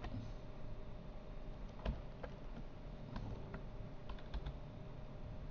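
Computer keyboard keys pressed now and then, a few separate clicks with a short cluster about four seconds in, over a faint steady hum.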